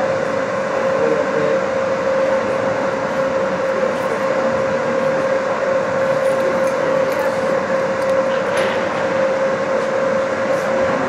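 Steady mechanical drone of ice-arena machinery, a constant hum with one strong held tone over an even rushing noise, with a few faint knocks in the later seconds.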